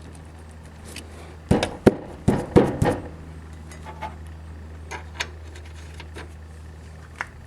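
A new Bilstein 5125 shock absorber being worked onto its silicone-sprayed upper mounting stud. About a second and a half in there is a quick cluster of sharp metal knocks and clicks, then a few lighter ticks, over a steady low hum.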